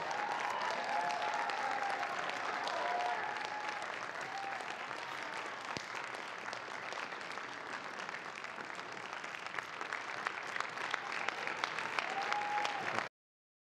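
Audience applauding in a hearing room, dense clapping with a few voices calling out over it in the first few seconds and again near the end. The sound cuts off abruptly near the end.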